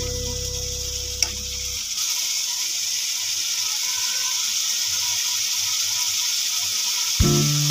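Masala with dried red chillies sizzling in oil in a steel kadai, a steady frying sizzle. Background music fades out about two seconds in and starts again near the end.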